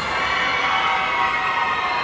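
Crowd in a large arena hall cheering and applauding, with a pop song playing over it.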